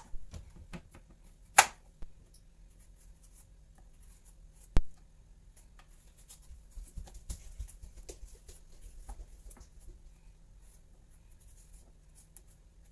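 Chef's knife peeling the skin off a bottle gourd (opo) over a wooden cutting board: faint, irregular scraping and slicing with light clicks as strips fall. Two sharp knocks stand out, at about one and a half seconds and, loudest, about five seconds in.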